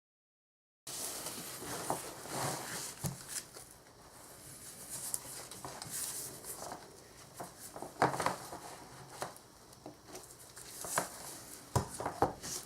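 Hands handling small metal parts and tools on a bench: irregular light clicks, taps and rustling, starting about a second in, with a few sharper knocks near the middle and end.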